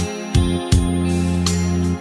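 Instrumental music: a slow ballad arrangement with a deep sustained bass and struck chords from a keyboard or guitar, new chords sounding a couple of times.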